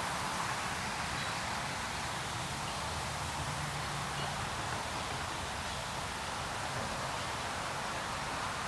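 Steady outdoor background hiss with a faint low hum underneath and no distinct events.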